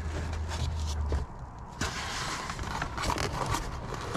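Rustling and scraping of a 12-gauge wire being shoved down behind car carpet and plastic trim, with scattered light clicks. A low hum cuts off about a second in.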